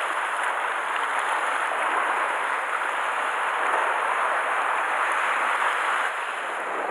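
Sea water washing and swirling against shoreline rocks: a steady rushing noise.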